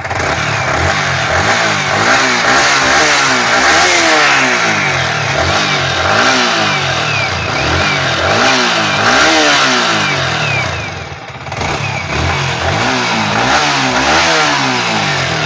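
Yamaha R15 V3's single-cylinder engine running and being revved up and down again and again, in pitch rises and falls. Its burnt-out magnet (stator) coil has just been replaced, and it runs without humming or bearing-like noise.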